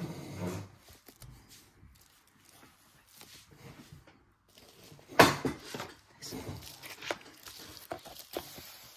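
Bubble-wrapped card boxes being handled and lifted out of a cardboard shipping carton: crinkling of the bubble wrap and rustling packaging, with one sharp knock about five seconds in.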